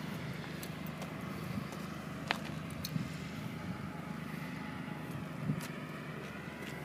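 Kawasaki 250 parallel-twin motorcycle engine idling steadily through an aftermarket replica Z1000-style exhaust, a low even hum with a few faint ticks.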